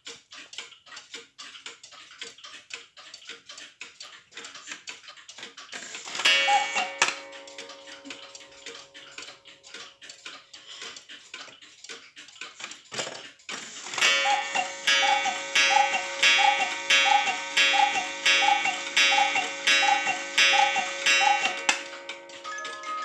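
Vintage Black Forest cuckoo clock ticking, then sounding after its hands are turned: a short call about six seconds in, then a long, evenly spaced run of two-note cuckoo calls from its bellows pipes, each with a breath of air. Near the end a music box starts a tune.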